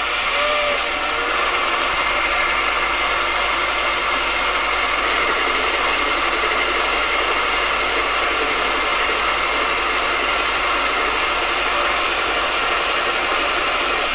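AMA 714B 500-watt mini lathe running with its spindle turning, giving a steady mechanical whine. The tool is taking a very light pass on unhardened O1 tool steel, barely touching the work.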